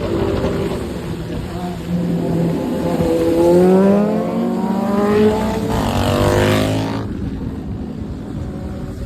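Kawasaki Z900 motorcycle engine running and accelerating, its pitch rising about three seconds in. Around six seconds in comes a louder, rougher burst of exhaust noise, and the engine then settles lower near the end.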